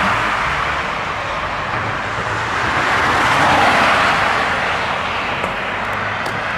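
Road traffic noise: the tyre and engine sound of passing cars, swelling about three to four seconds in as a vehicle goes by, over a low steady hum.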